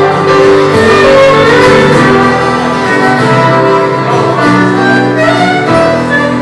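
Fiddle playing an instrumental break, the melody carried in long bowed notes over strummed acoustic guitars and keyboard.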